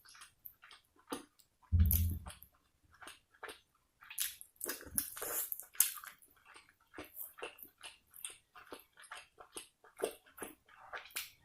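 Close-miked eating sounds: wet chewing and lip smacking, heard as a quick, irregular run of small mouth clicks. A low thump about two seconds in is the loudest sound.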